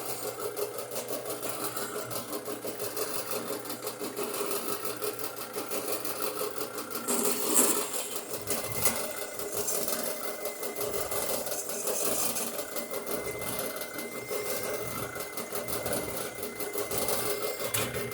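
Drill press boring through quarter-inch steel channel, running with a fast, even mechanical rattle, with a brief louder moment about seven and a half seconds in.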